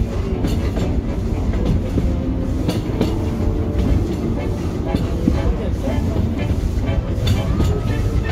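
Disneyland Railroad passenger train rolling along its track: a steady low rumble with irregular clicks and knocks from the wheels and cars.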